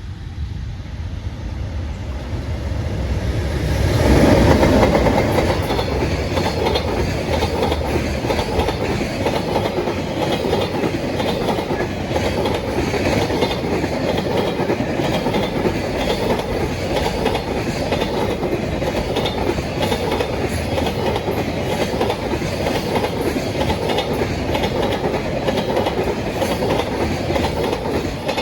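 JR Freight EH500 electric locomotive passing at speed through a station, loudest about four seconds in, followed by a long string of freight wagons rolling by with a steady clickety-clack of wheels over the rail joints.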